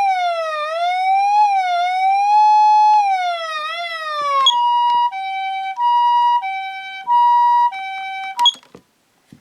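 Patlite SAP-500RBVK-N electronic siren amplifier sounding a wailing siren tone that glides up and down unevenly. About four and a half seconds in it switches to the two-tone "pee-poh" ambulance siren, alternating high and low about every two-thirds of a second. It cuts off with a click near the end.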